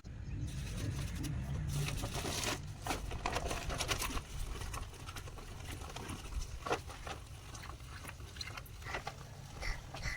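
Irregular scraping with scattered light clicks and knocks, from hand work on ceramic wall tiles and mortar.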